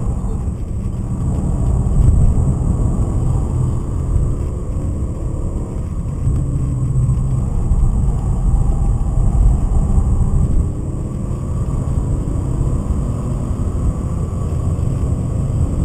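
BMW 528i's 2.8-litre M52 straight-six engine running hard under load, heard from inside the cabin together with road and wind noise; its pitch rises and falls as the car is driven around the track, and the level drops away about eleven seconds in.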